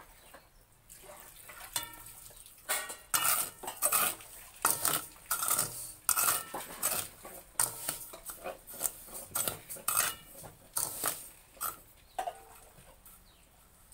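Perforated steel skimmer scraping and stirring through sand and chickpeas in a steel wok, roasting the chickpeas in hot sand. Quiet at first, then a quick run of rough, rasping scrapes from about three seconds in until about eleven seconds, dying down near the end.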